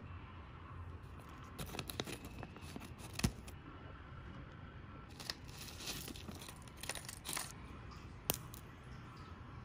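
Small plastic condiment sachets crinkling as they are handled and cut open with scissors, with a sharp snip about three seconds in and another near the end.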